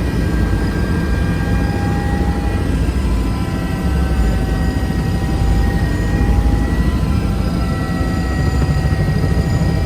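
Helicopter flying close by: a loud, steady rotor rumble with a high engine whine over it.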